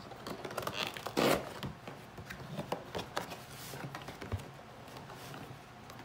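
Cardboard pizza box being opened: flaps pulled free and the lid lifted, with scraping, rustling cardboard and small clicks, loudest about a second in.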